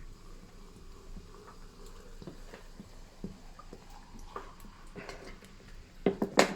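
Carbonated soda being poured into a jug, with faint scattered ticks of fizzing. A few sharp clicks come near the end.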